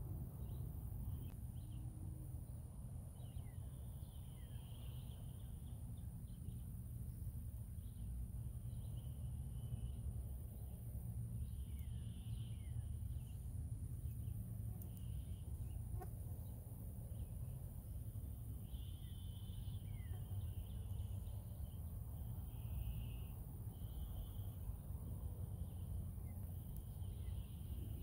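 Outdoor insect and bird ambience: a steady high-pitched insect drone, insects chirping in short trills every second or two, and a few short falling bird calls, over a steady low rumble.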